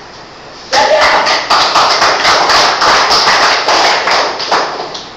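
A small audience applauding: many quick overlapping hand claps that start suddenly about a second in and die away near the end.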